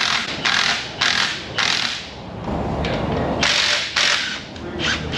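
Hand ratchet wrench clicking in short bursts of back-strokes, about one a second, with a pause partway through, as a fastener on the engine is worked.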